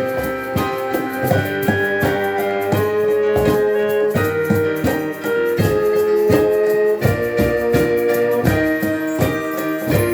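A small live ensemble playing: piano with a melody of long held wind notes over a steady hand-drum beat.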